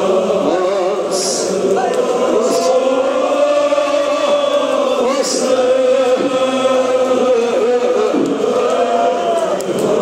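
Men's voices chanting a Kashmiri marsiya, a mourning lament, in chorus, with long drawn-out sung notes.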